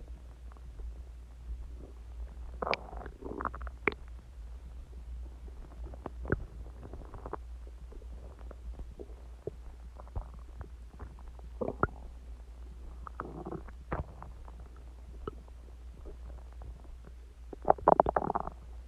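Human stomach growling as it digests a meal of eggs, ice cream and Coke: irregular gurgles and squeaks over a low steady hum, with a louder run of gurgles near the end.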